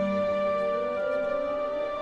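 Soft background music of held, sustained notes, moving to new notes about a second in.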